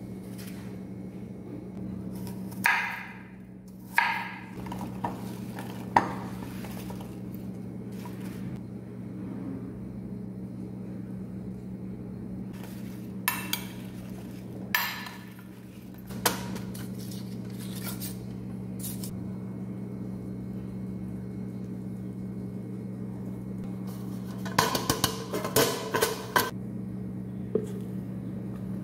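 A metal spoon and utensils clinking and knocking against a glass baking dish as diced apples are handled and stirred: scattered sharp knocks, then a quick run of clinks near the end, over a steady low hum.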